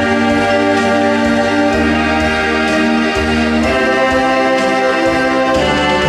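Instrumental background music of sustained, organ-like chords that change about every two seconds.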